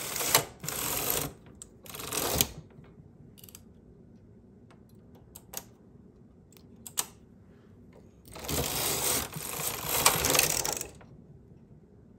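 Singer 328 Memo-Matic knitting machine carriage sliding across the metal needle bed, knitting a row with a clattering swish. The first pass ends about a second in, a few light clicks follow, and a second pass runs from about eight seconds in to about eleven.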